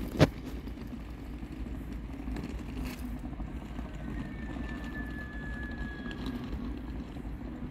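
Low, steady rumble of a DB Metropolitan train drawing slowly into a station platform, with a faint high squeal lasting about two seconds midway. A single sharp click just after the start is the loudest sound.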